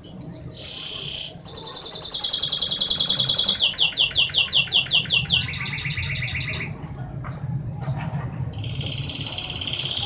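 Canary singing: rapid trills of quickly repeated high notes, switching to a new trill every second or two, with a pause of about two seconds before the song starts again near the end.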